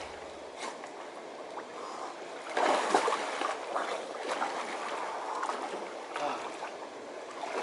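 A person plunges into a river pool with a loud splash about two and a half seconds in, then swims, the strokes and kicks splashing irregularly, over a faint trickle of flowing water.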